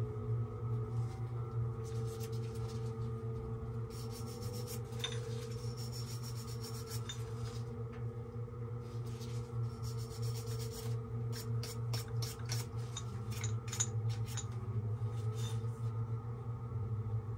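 Rubbing, scraping and light clinks of threaded black-iron pipe fittings being handled and worked, in two spells of activity, over a steady low hum.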